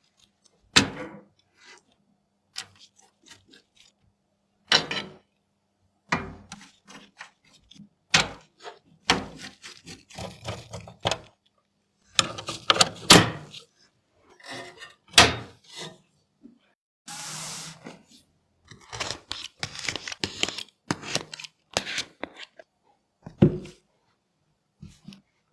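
PC components and their packaging being handled during an unboxing and build: scattered taps, knocks and clunks of hard parts being set down. A short rustling scrape comes a little past the middle.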